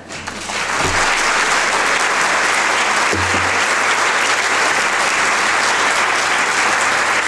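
Audience applauding, swelling up within the first half second and then holding steady and loud.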